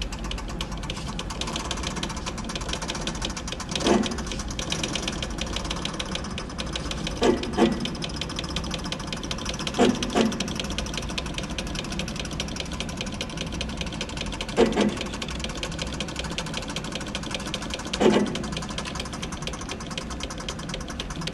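Industrial sewing machine running steadily with a fast, even stitching rhythm. About six louder knocks stand out at irregular intervals, two of them close together near the middle.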